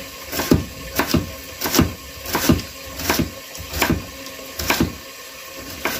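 Kitchen knife slicing carrot into thin strips on a wooden cutting board: a steady series of sharp chops, about one every two-thirds of a second, each blade stroke knocking on the board.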